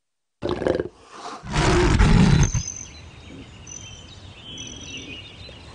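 Big cats snarling: a short snarl, then a louder, deep growl lasting about a second, after which it drops to a quiet background with faint high chirps.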